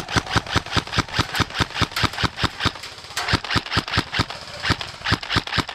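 Airsoft gun firing rapid single shots, a sharp crack about five times a second, with a short break about three seconds in.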